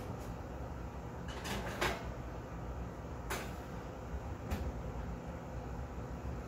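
Oven door opened and shut while a metal muffin tin is put in: a few separate clunks and clatters over a low steady background hum.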